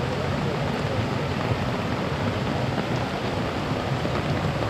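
Heavy rain falling, a steady, dense hiss.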